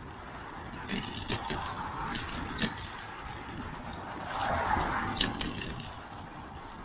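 Bicycle rolling along a concrete sidewalk, with low wind rumble on the microphone and sharp clicks and rattles as it rides over the pavement. A car passes on the road about four to five seconds in.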